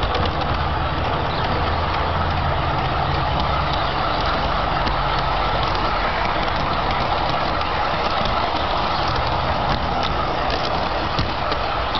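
Garden-scale model of a Corpet locomotive running on outdoor track: a steady whirr with scattered light clicks.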